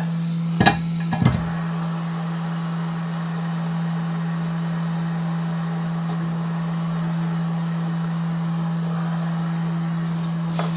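Steady hum and airy hiss from a hot air rework station's blower left running after desoldering. Two sharp clicks come in the first second and a half.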